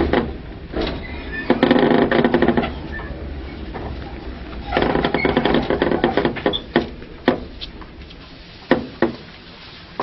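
Sounds from a Tobu 5050 series electric train standing at the terminal platform after arrival: three bursts of clatter, then a few sharp clicks near the end.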